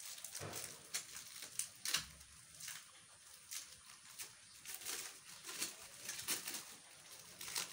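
Irregular rustles and sharp clicks of packaging and plastic parts being handled as the metal detector's shaft is unwrapped, louder at a few moments.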